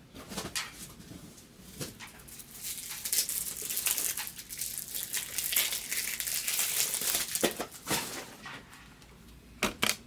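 Plastic wrapping on a pack of card top loaders crinkling and crackling as it is handled and torn open, over about five seconds in the middle. A few sharp clicks and knocks come near the start and again near the end.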